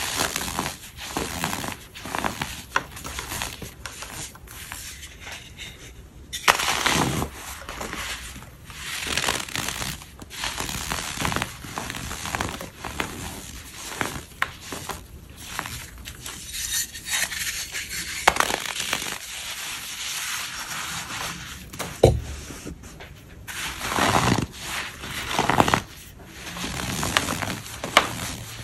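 Blocks of packed white powder being crushed and crumbled: a continuous crisp crackling of many small cracks, with several louder crunches about 7 s, 22 s and 24 to 26 s in.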